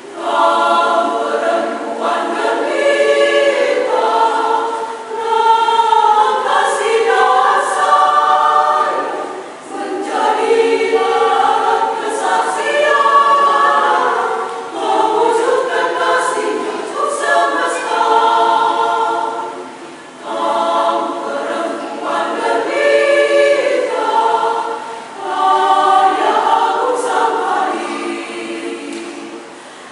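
Women's church choir singing a march hymn in parts, in long phrases with brief breaks between them.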